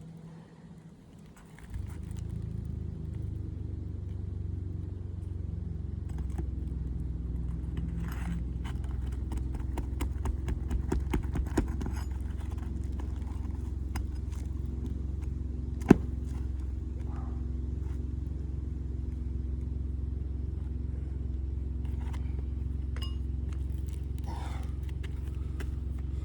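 Small metallic clicks and scrapes of nails being worked loose from asphalt roof shingles, with one sharp click about halfway through. A steady low engine-like drone starts about two seconds in and runs under them, louder than the clicks.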